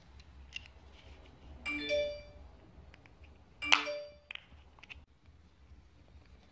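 Two short electronic chimes about two seconds apart, each a click followed by a few quick notes stepping upward; the signal of a Pandora car alarm key tag coming into range once its battery is in.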